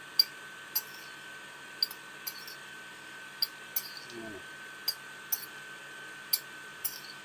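Metal spoon clinking and tapping against a glazed ceramic bowl while cut strawberries and raspberries are stirred in it: about a dozen light, irregular clicks. A faint steady high hum runs underneath.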